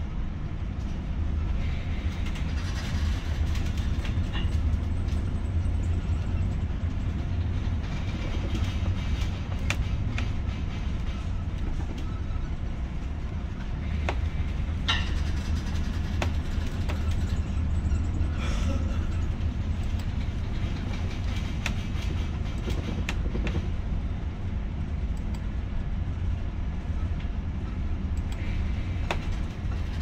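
Steady low rumble of a ship under way, with occasional short clicks and rattles.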